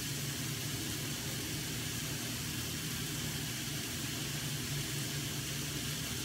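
A steady low machine hum with an even hiss over it.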